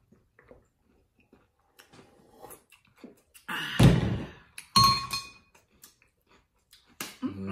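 Tableware being handled on a table: a heavy thunk about three and a half seconds in, then a sharp, ringing clink of glass or dishware a second later, with faint small clicks in the quiet stretches around them.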